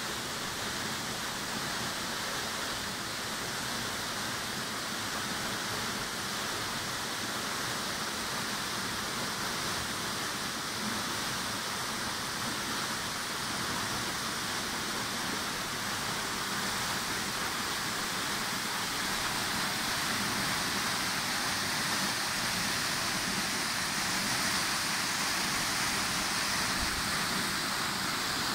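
Tall waterfall pouring down a rock face onto rocks, a steady rush of falling water that grows a little louder in the second half.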